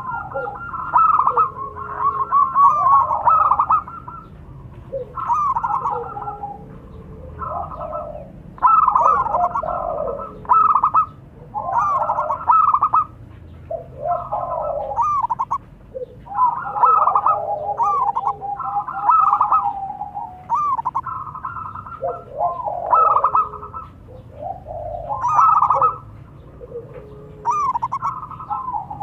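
Zebra doves (perkutut) cooing, several birds answering one another in repeated phrases of quick, rolling coos, a phrase every second or two.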